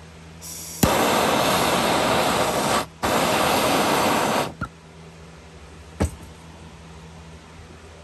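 Handheld Bernzomatic trigger-start gas torch clicking alight and burning with a loud, steady hiss, heating a cable lug to melt solder onto the winch wire. It burns for about two seconds, cuts out briefly, clicks alight again and burns for nearly two more seconds before shutting off. A single sharp click follows about a second and a half later.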